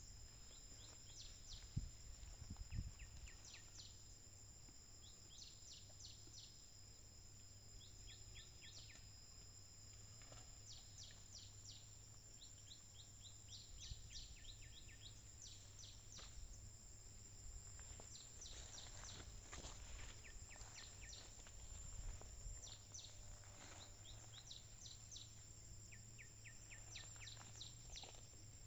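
Faint rural outdoor ambience: a steady high-pitched whine with many short runs of quick high chirps, three to five at a time, over a low hum. A few soft low thumps come about two and three seconds in.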